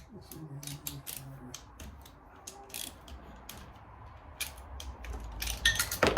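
Hand ratchet clicking and metal tools clinking while bolts are worked loose on the stator cover of a Suzuki LTR 450 engine, with a louder clatter of clicks near the end.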